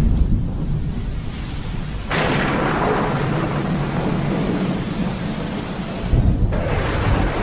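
Thunderstorm: thunder rumbling low over rain, with a sudden loud crash about two seconds in that rolls on for several seconds, and another burst of thunder near the end.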